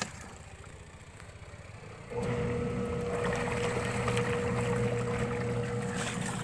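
Washing machine motor switching on about two seconds in and running with a steady electric hum as the tub spins.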